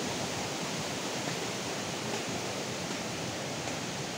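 Steady, even rushing of a stream running full after heavy rain.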